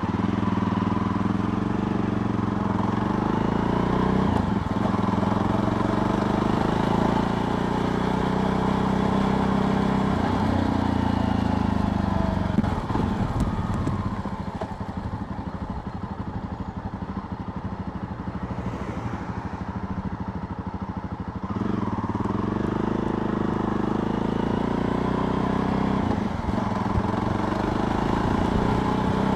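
Jawa Perak motorcycle's two-stroke engine under way, revving up through the gears with a brief break in the engine note at each shift. About halfway through it eases off and runs lower for several seconds, then pulls hard and climbs through the gears again.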